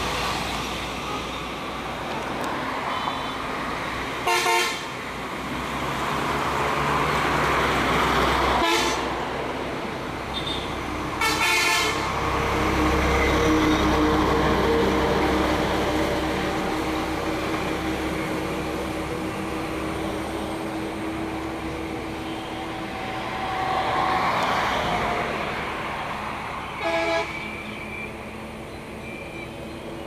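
Road traffic running steadily, swelling and fading as vehicles pass, with three short vehicle horn blasts: one about four seconds in, one about eleven seconds in, and one near the end.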